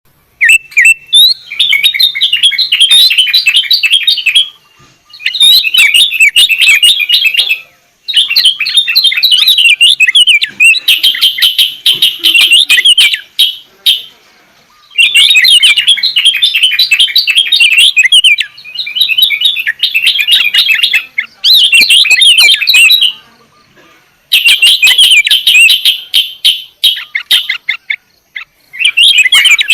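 Sooty-headed bulbul (kutilang) singing: bouts of rapid, bubbling chirps a few seconds long, repeated about eight times with short pauses between them.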